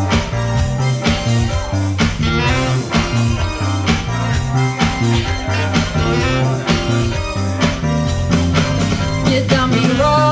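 Rock band music with no vocals: a steady drum beat over a moving bass line.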